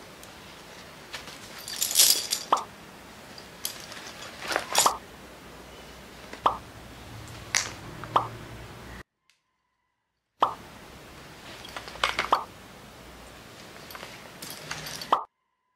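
Small items being handled and dropped into a black nylon shoulder bag, giving soft rustles and a string of sharp clicks and taps every second or two. The sound cuts out to silence twice, for a second or so each time.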